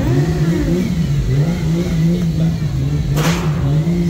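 A car engine revs hard and repeatedly, its note swinging up and down, as in a drift-car show run. About three seconds in comes a short, sharp hiss.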